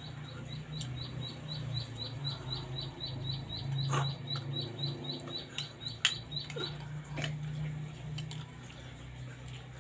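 A small bird chirping in a fast, even run of high chirps, about four a second, that stops about two-thirds of the way through. A few sharp clinks of a metal spoon on a plate come over a steady low hum.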